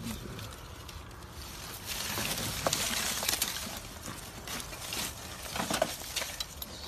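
Rustling and scuffing from someone moving about outdoors, louder about two seconds in, with a few sharp clicks.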